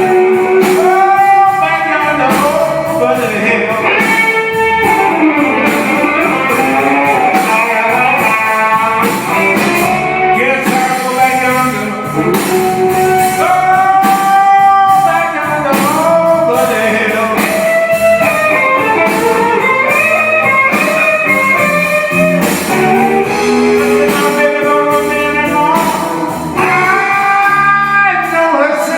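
Electric guitar playing a live jazz-fusion solo of quick lead lines with bent notes.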